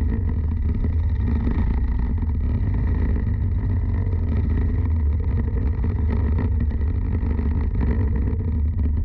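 Racing kart engine running at a steady speed with a heavy low rumble, its pitch holding level with no revving up or down.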